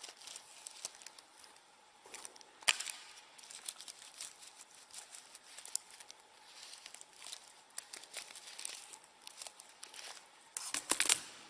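Laptop keyboard being handled: scattered small clicks and rustling, with a louder burst of scraping strokes near the end.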